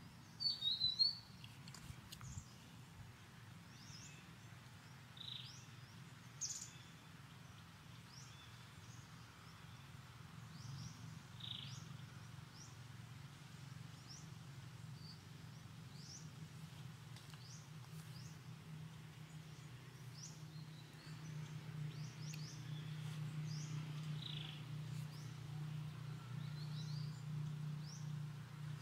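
Forest ambience: scattered short, high chirps throughout, with one louder squeaky call about a second in, over a low steady hum that grows louder in the last third.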